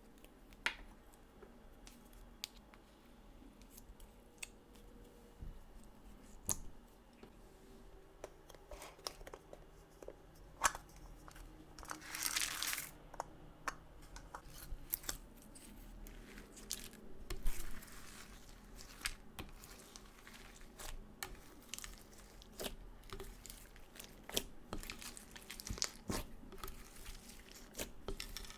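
Clear slime being mixed with makeup and glitter: scattered sticky crackles, clicks and pops, with a longer crackling burst about twelve seconds in.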